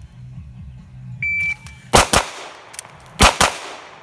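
Shot timer's start beep, then two pistol shots in quick succession, a pause of about a second for a magazine change, and two more quick shots: a 2-reload-2 drill run against the timer.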